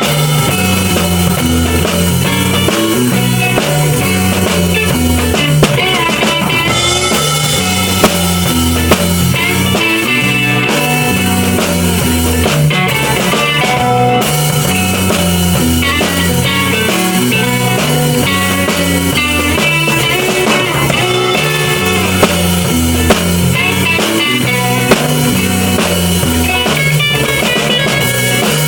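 Live loop-session jam: a drum kit played along with guitar over a repeating low bass pattern, with a few sharper drum hits standing out.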